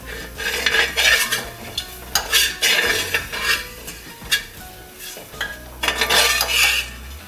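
Steel spoon stirring and scraping grated coconut with chilli and spice powders as it roasts in a steel pan, in a few bursts of scratchy strokes.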